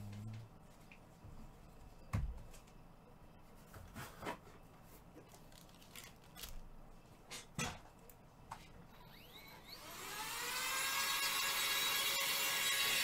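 Trading-card packs and cards handled, with scattered light clicks and taps and one sharper knock about two seconds in. About ten seconds in, a small electric motor spins up with a rising whine and settles into a steady, louder whir.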